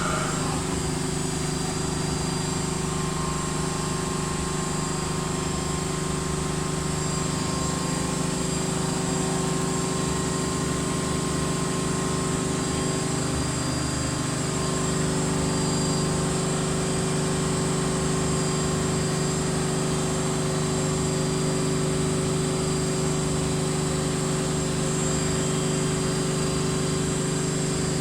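Miele Novotronic W1514 front-loading washing machine in its final spin, set to 1500 rpm: a steady motor whine and drum hum at a constant pitch, with a brief change in tone about halfway through.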